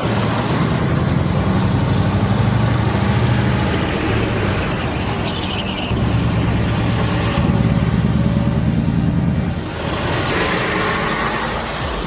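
Logging truck's diesel engine running, with a steady high whine over it. A rushing hiss comes in near the end.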